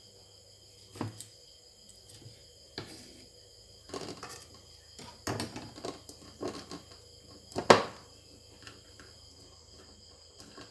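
Knife cutting fruit on a thick round wooden chopping block: a string of irregular knocks, the loudest about eight seconds in. Crickets chirp steadily behind.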